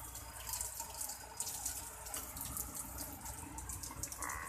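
Water running and dripping steadily, a faint hiss speckled with many small ticks of drops.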